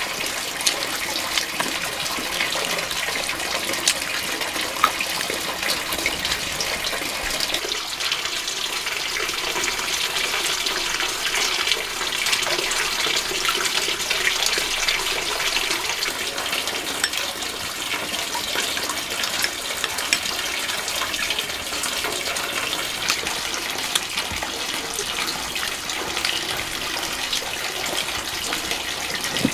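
Steady rushing of running water. Occasional light clicks of chopsticks against a steel bowl sound over it.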